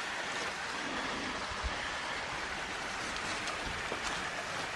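Steady rush of running water from a small creek waterfall, with a few faint taps.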